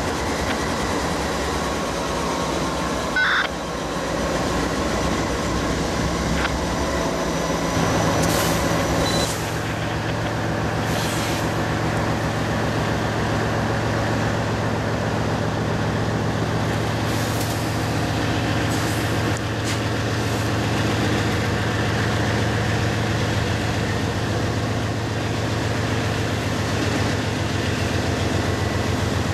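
Diesel freight locomotives running: first a loaded freight train rolling past, then, after about eight seconds, the wide-cab lead locomotives of a departing CSX freight working under power, with a steady low engine drone.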